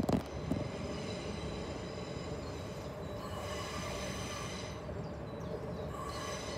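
Electric multiple unit running slowly into the station on a curve: a steady low rumble with a few sharp clicks near the start. A faint steady tone comes in about halfway through, typical of wheel squeal on the curve.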